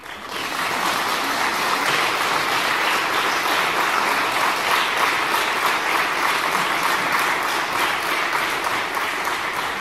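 Audience applauding, breaking out all at once and holding steady.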